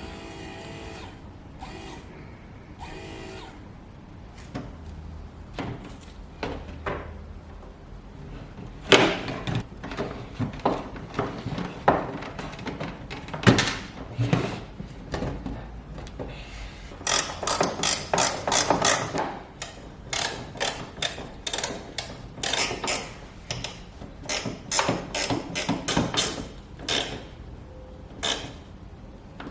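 Hand tools clicking and clattering in a run of short sharp clicks and knocks, coming thick and fast from about halfway on.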